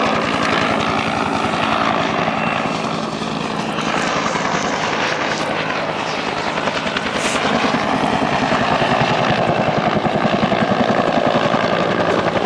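Two-bladed helicopter flying close by, its rotor beating in a fast, even rhythm that grows louder in the second half as it comes nearer.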